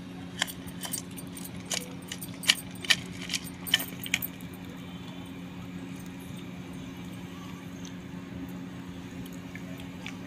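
Chunks of multani mitti (fuller's earth clay) clicking and clinking together as a hand scoops them out of a steel bowl of water. About a dozen sharp clicks fall in the first four seconds, over a steady low hum.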